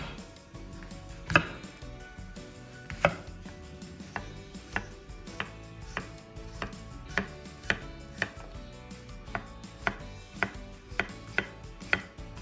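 Kitchen knife cutting an apple on a plastic cutting board: sharp knocks as the blade hits the board, the first few spaced a second or more apart, then a steady rhythm of about two a second.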